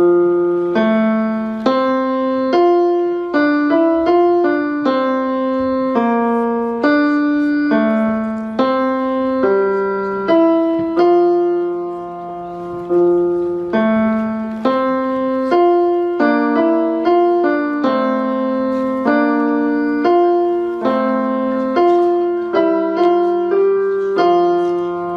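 Solo piano playing a slow, simple melody over lower held notes. The notes are struck about one or two a second and each dies away.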